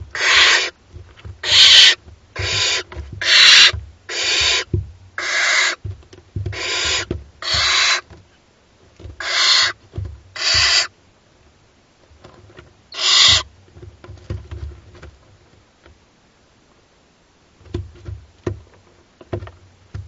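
Barn owl chicks giving their rasping, hissing begging calls, the 'snore' typical of hungry nestlings. About ten half-second hisses come in quick succession, then one more a couple of seconds later. The second half is mostly faint scratching and shuffling on the wood shavings.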